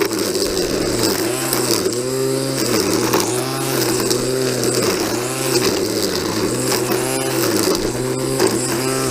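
Small gasoline engine running at high speed while cutting brush and grass, its pitch dipping and recovering about once a second as it bogs under the load.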